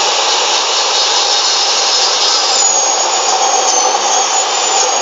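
A Maktec 2000-watt cut-off saw fitted with a 7-inch, 100-tooth aluminium-cutting blade runs steadily at speed while beef bone and meat are pushed under it to be cut. A thin high whine joins about two and a half seconds in.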